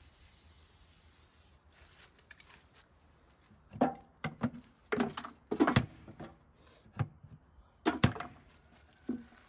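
Scattered sharp clicks, knocks and small metallic clinks of tools and objects being handled and set down, about eight in the second half, the loudest near the middle and about two seconds before the end.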